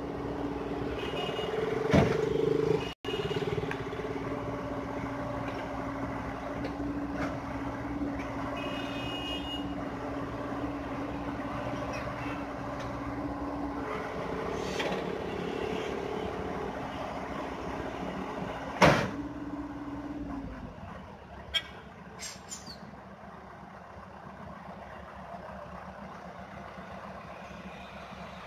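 Hyundai excavator's diesel engine running steadily at work, with two sharp loud knocks about 2 seconds in and near 19 seconds. The steady engine note drops away about 20 seconds in, leaving a quieter rumble with a few light clicks.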